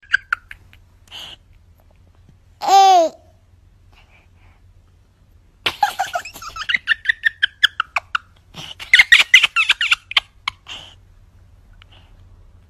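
A baby laughing in bursts: a short high squeal about three seconds in, then runs of quick giggles and squeals from about six to ten seconds in.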